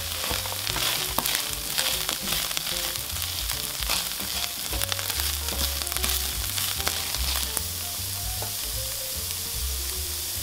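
Fried soy-meat pieces coated in sauce sizzling in a hot frying pan while being stirred and tossed with a spatula, a steady sizzle with many small crackles and clicks.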